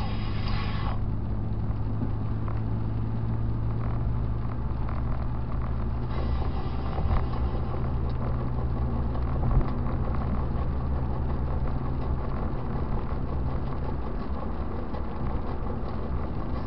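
Car driving on a wet road, heard from inside the cabin: a steady low engine and tyre hum with a held engine tone. Two short knocks, about seven and nine and a half seconds in.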